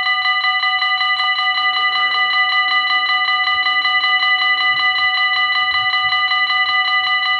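Dutch automatic level-crossing (AHOB) warning bells ringing continuously in rapid, even strikes with a bright metallic tone: the crossing is in its warning phase, signalling an approaching train.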